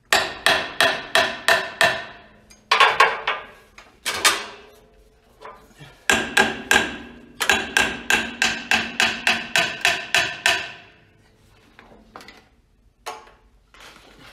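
Hammer striking the cast-iron cylinder head of a 1939 Ford 9N's flathead four-cylinder engine, knocking the stuck head loose from its studs. The blows ring metallically and come in several quick runs of about three to four a second with short pauses between, thinning to a few scattered hits near the end.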